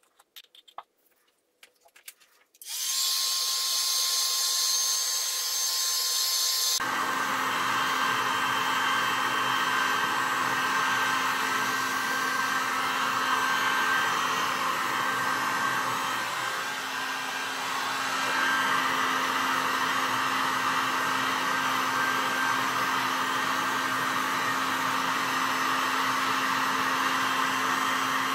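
Electric heat gun blowing hot air over wet acrylic pour paint. It comes on with a thin hiss about three seconds in, then runs louder and fuller, with a steady hum, from about seven seconds in. Heating the silicone-oil paint like this brings up cells and pops air bubbles.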